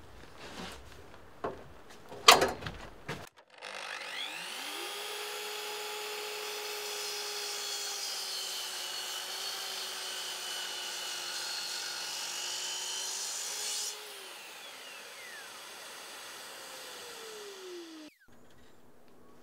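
A few knocks with one loud thump about two seconds in. Then a mitre saw spins up and cuts through a softwood timber for about ten seconds with a steady whine, and winds down with a falling whine after the cut.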